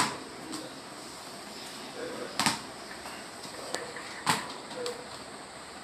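Tennis ball thrown around a tiled room, hitting the floor and wall: three sharp knocks, the loudest right at the start, the others about two and a half and four seconds in.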